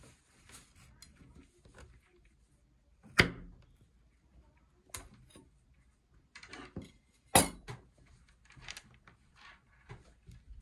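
A chef's knife chopping through green acorns and striking a wooden cutting board, making sharp knocks. Two loud chops come about three and seven and a half seconds in, with lighter taps and handling rustles between them.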